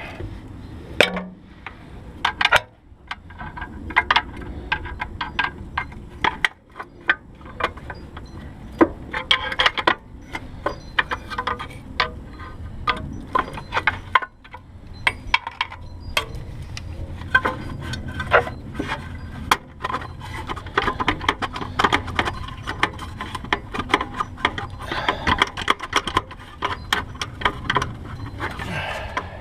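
Irregular clicks, clinks and knocks of tools, fasteners and hard plastic being handled in a car's engine bay, as the plastic air-intake snorkel housing is worked loose.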